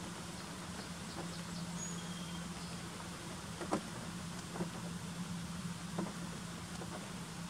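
Steady rain: an even hiss with scattered drops ticking, the sharpest about halfway through, over a steady low hum.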